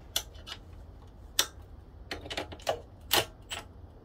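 A wrench tightening a motorcycle engine mount bolt, making sharp metallic clicks and clinks at uneven spacing, some in quick little runs.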